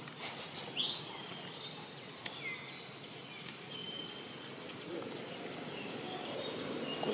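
Birds chirping in short, high calls scattered over steady outdoor background noise, with one call falling steeply in pitch about a second in.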